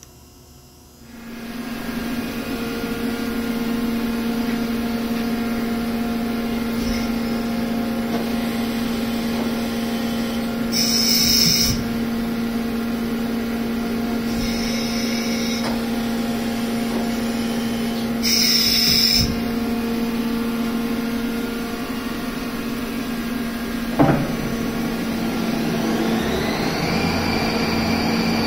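Mori Seiki SL-80 CNC lathe powering up: about a second in, its motors start with a steady hum that holds. Two short higher-pitched bursts and a single knock follow. Near the end a whine rises in pitch and levels off as the spindle brings the 33-inch three-jaw chuck up to speed.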